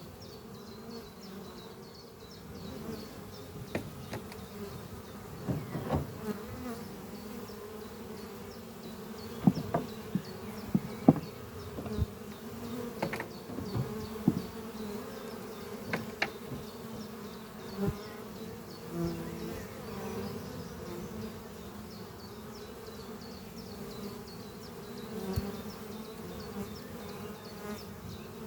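Honeybees flying at the entrance of a busy hive: a steady drone of many wingbeats, with single bees buzzing loudly past close by every second or two.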